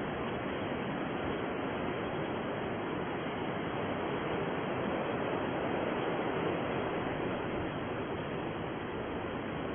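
Deep white noise for sleep: a steady, even rushing hiss with no high treble, swelling very slightly a little past midway.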